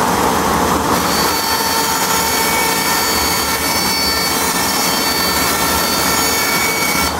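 Bandsaw running and cutting through a board: a steady noise with a faint high whine.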